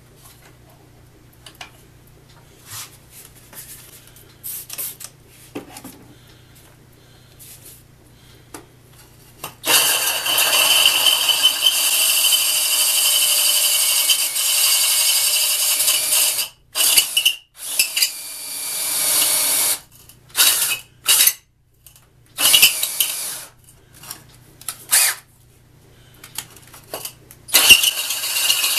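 Cordless drill driving a diamond hole saw, grinding into a wet workpiece. After a few light handling clicks it starts about ten seconds in and runs steadily for about seven seconds, then goes in short stop-start bursts as the trigger is released and squeezed again, one burst rising in speed.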